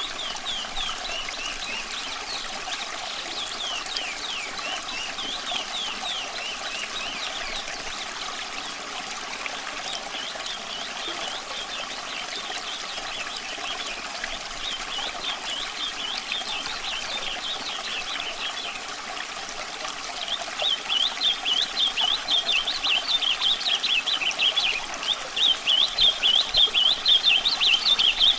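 A stream of running water trickles steadily while a nightingale sings phrases of quick, repeated down-slurred notes. About two-thirds of the way through, the song turns into a louder, denser burst of rapid notes.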